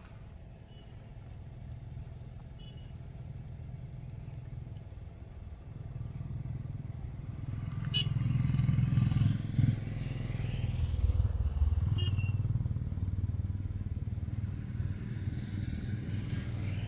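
A low, steady rumble that swells louder about six seconds in and stays loud, with a sharp click about eight seconds in.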